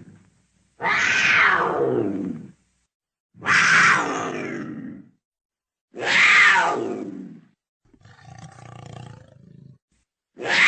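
Leopard calling: four long calls, each falling in pitch over about a second and a half, with short silent gaps between them, and a fifth starting near the end. The fourth call, about eight seconds in, is quieter and rougher than the rest.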